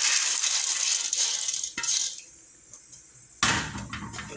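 Soaked red beans and their water pouring from a bowl into an aluminium pressure-cooker pot, stopping about two seconds in. About a second later comes a single sharp clatter of kitchenware.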